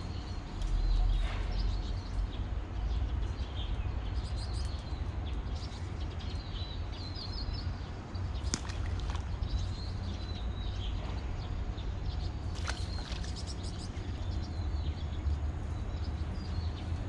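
Outdoor ambience: a steady low rumble with small birds chirping now and then, and a few brief scratchy rustles.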